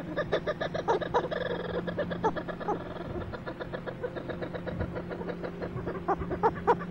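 A flock of cape petrels calling from the water, a rapid, harsh chattering of many overlapping cackles. A steady low hum runs underneath.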